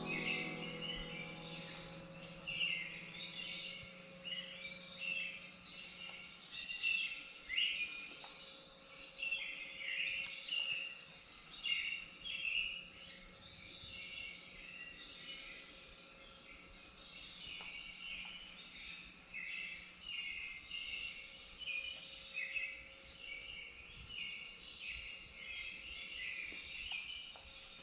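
Birds chirping and singing, a dense run of many short overlapping calls, over a faint steady hum.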